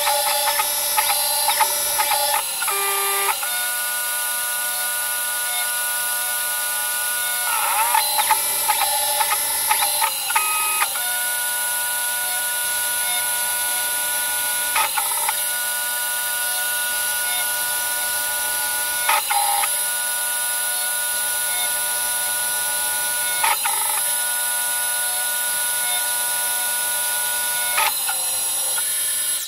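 CNC-converted Optimum BF20L milling machine cutting UHMWPE with a 10 mm four-flute carbide end mill, played back sped up sixfold. It gives a steady high-pitched mechanical whine that holds its pitch for a few seconds at a time and shifts at each change of toolpath move, with warbling pitch swoops near the start and again around eight to ten seconds in.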